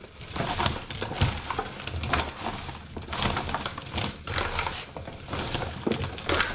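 Bare hands working raw chicken breasts in olive oil and seasoning: a run of irregular wet squishes as the meat is turned and rubbed.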